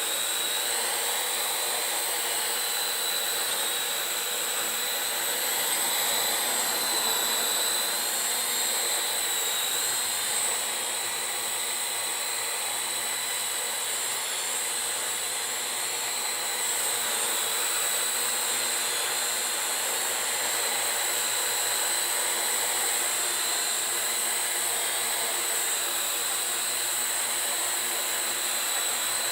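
Parrot AR.Drone 2.0 quadcopter's four electric motors and propellers running steadily in flight, a continuous high whine over a whooshing hiss whose pitch wavers slightly.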